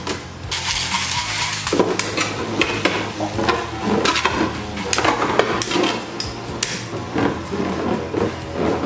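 Two Infinity Nado metal spinning tops launched into a plastic stadium, a noisy whir near the start, then spinning and clashing against each other and the bowl with many sharp, irregular metallic clicks and knocks.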